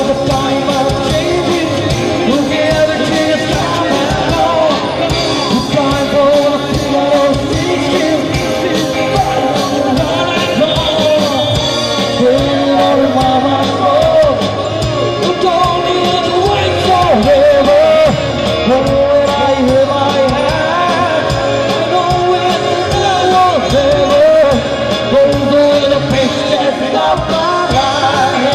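Live rock band: a man singing into a microphone over electric guitars, drums and keyboard, played loud through stage speakers.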